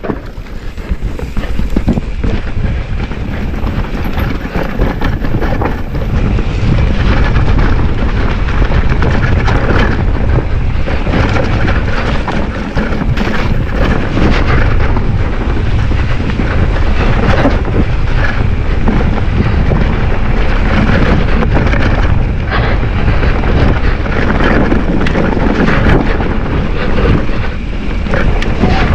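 Wind buffeting the microphone of a handlebar camera on a mountain bike ridden fast down a rough dirt trail, with tyre rumble and many short knocks and rattles from the bike over bumps. It grows louder over the first few seconds as the bike picks up speed.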